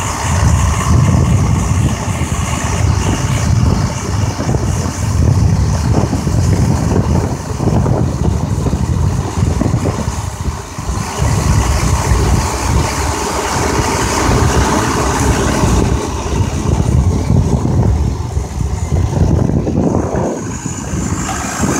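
Engine and road noise from inside the open, canopied passenger area of a moving truck. It is a heavy low rumble that rises and falls.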